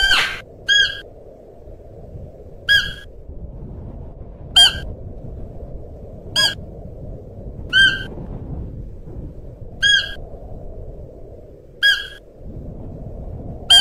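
Siberian musk deer calling: a short, high call repeated about every two seconds, over a steady low background rumble.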